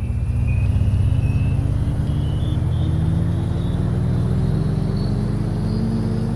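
A motor vehicle engine running, its pitch rising slowly and steadily.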